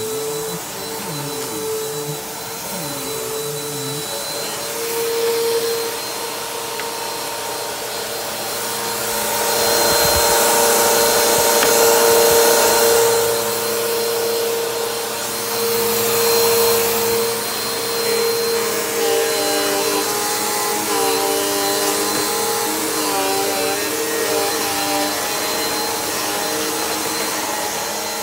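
Bissell PowerForce Helix upright vacuum cleaner running, a steady motor whine under a rushing hiss. The hiss swells louder about a third of the way through and again a little later.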